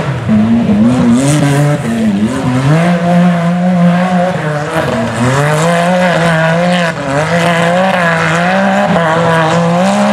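Rock bouncer buggy's engine revving hard under load as it climbs a rocky hill, held at high revs with brief dips and surges of the throttle.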